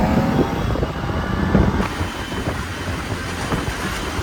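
Vehicle noise from the road, an even noisy rumble with no clear engine note; the sound changes abruptly about two seconds in.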